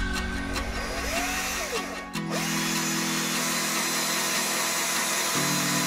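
Power drill boring a hole through a small plastic block, running steadily as the bit cuts, over electronic background music.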